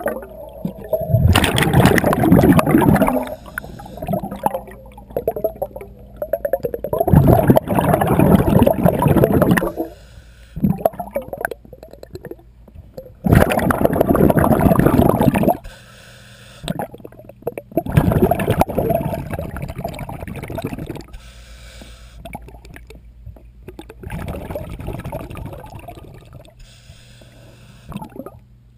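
Scuba diver's regulator exhaust underwater: bubbling bursts of exhaled air, about five in all, each two to three seconds long and coming every five or six seconds, with quieter stretches between.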